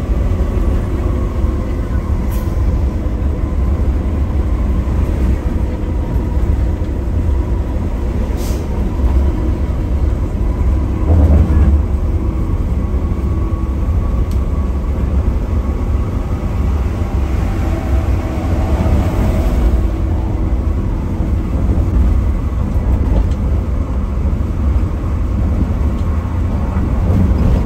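Bus running: a steady low engine and road rumble with faint steady engine tones, growing louder for a moment about eleven seconds in.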